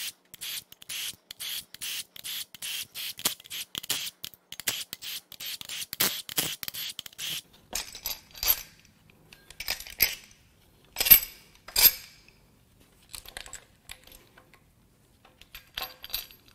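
A power ratchet spinning loosened cam cap bolts out of a Toyota 2AR-FE cam tower in a rapid series of short bursts. From about halfway through come several sharp metallic clinks as bolts and cam caps are lifted off and set down.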